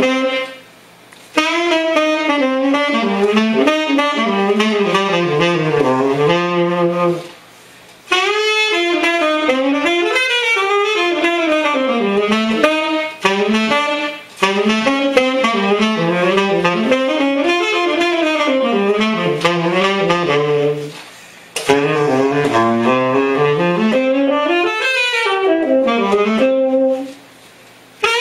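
Tenor saxophone with a Seinsia Submarine T6 metal mouthpiece, played solo in quick, running jazz phrases. It pauses briefly for breath between phrases, about five times.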